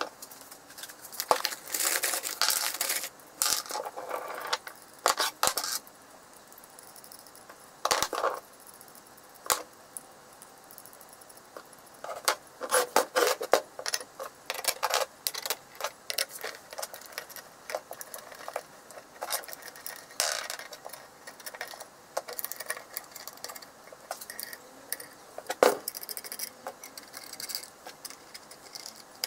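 Threaded steel rods and hex nuts clinking and rattling as they are handled on a wooden bench and set into a steel plate: irregular metallic clicks and knocks, with one sharper knock near the end.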